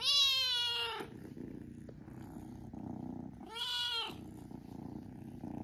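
Young cat meowing twice: a long meow right at the start and a shorter one about three and a half seconds in, with a low steady purr between the calls.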